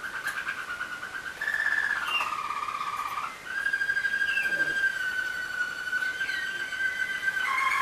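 Waterslager (Malinois) song canaries singing: fast rolling trills in the first half, then after a short break one long, steady, whistle-like held note lasting about four seconds, changing to a new pitch near the end.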